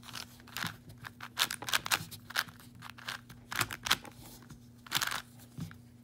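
A 4x4x4 Rubik's cube being turned by hand: its plastic layers click and clack in quick, irregular flurries as they rotate.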